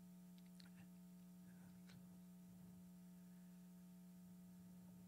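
Near silence with a faint, steady electrical hum, with a couple of faint ticks.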